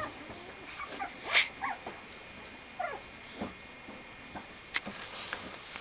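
Mame shiba puppy giving several short, high whimpers, with a couple of sharp clicks between them.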